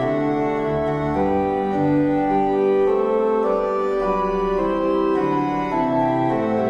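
Organ playing slow, held chords, the notes changing about every second.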